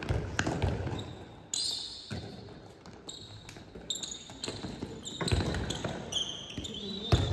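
Handball thudding on a sports-hall floor and slapping into hands, with short sneaker squeaks as players run and cut, all echoing in a large hall. The loudest ball impacts come about five seconds in and just before the end.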